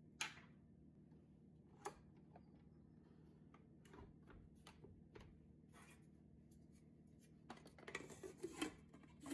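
Faint, scattered clicks and taps of a stand mixer's bowl and clear plastic shield being handled and fitted, a few at a time with a busier run of taps near the end.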